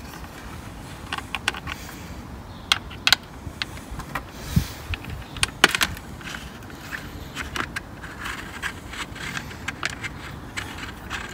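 Allen key turning in a bolt head on a motorcycle's plastic radiator side cover: irregular small metallic clicks and scrapes, a few sharper ones in the middle.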